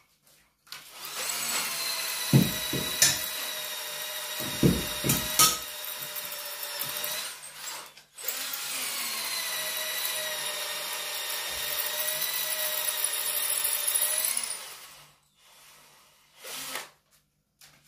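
Electric drill boring into brick with a 4.2 mm masonry bit, making the holes for the nails that will hold the stove door. It runs in two long steady stretches with a brief stop about eight seconds in, and a few heavy knocks come during the first run.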